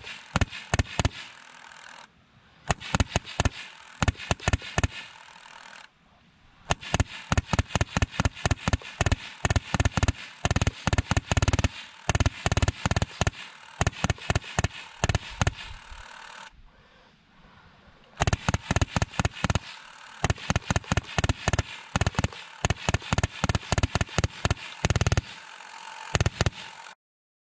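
A scale 20 mm auto cannon firing full auto: sharp shots about four a second in four long strings with short pauses. A steady whir runs under each string and stops in the pauses.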